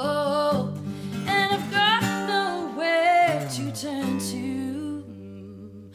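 Live acoustic pop-folk song: singing over acoustic guitar, then a low instrument note slides down and is held while the voice pauses, the music growing softer in the last second.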